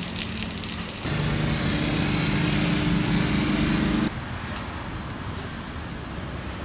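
Rain falling for the first second, then city road traffic: a motor vehicle's engine runs close by for about three seconds and cuts off abruptly, leaving quieter passing traffic.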